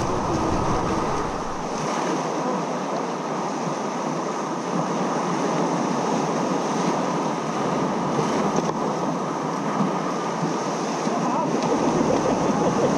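Sea surf breaking and washing over a wave-swept rock shelf, a steady rushing, with wind on the microphone.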